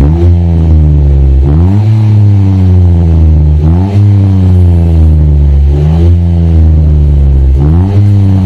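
Mitsubishi Mirage G4's three-cylinder engine revved through an HKS burnt-tip freeflow muffler. It gives about five quick blips, each rising sharply and settling back down before the next.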